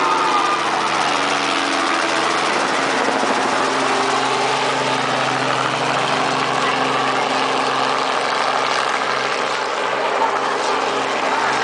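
Helicopter running steadily: a continuous loud engine and rotor noise with a few steady low tones.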